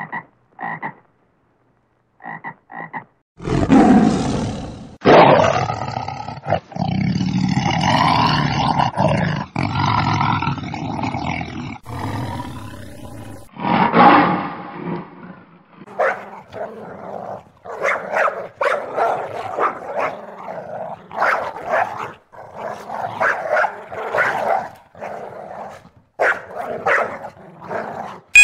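A toad gives a few short croaks. From about three seconds in, a lion roars and growls at length. Through the second half a small dog barks repeatedly in short barks.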